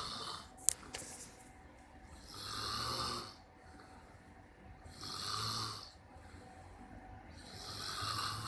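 A man snoring in his sleep, one rasping snore roughly every two and a half seconds, three in all. A short sharp click sounds just under a second in.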